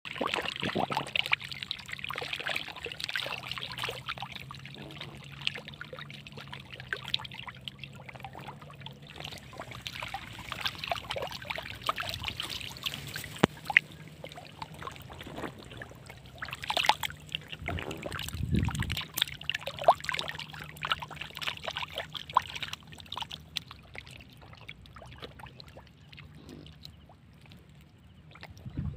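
Water trickling through a shallow muddy channel, with fish thrashing and splashing in it, making many short wet slaps and one heavier splash about two-thirds of the way through.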